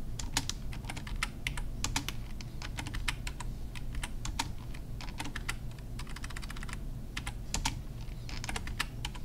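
Typing on a computer keyboard: key clicks in quick, irregular runs with short gaps.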